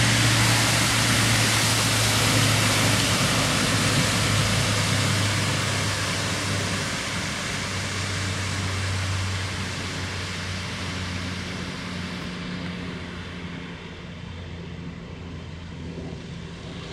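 A car driving through deep floodwater, its tyres throwing up spray with a loud rushing hiss over a low engine hum. The sound fades steadily as the car moves away.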